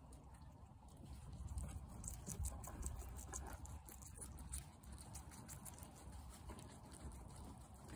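A guinea pig chewing a piece of grape: quick runs of small clicks, thickest in the middle, over a low steady rumble.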